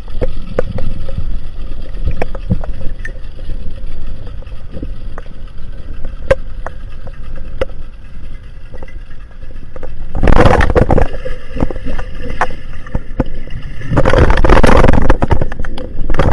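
Underwater sound picked up by a diver's camera: a steady low rumble with scattered sharp clicks. Loud rushing bursts of noise come in about ten seconds in and again near the end.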